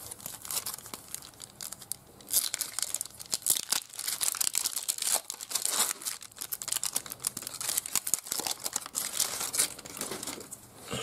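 A trading-card pack wrapper being torn open and crinkled: a dense, crackly rustle that gets louder about two seconds in and goes on until near the end.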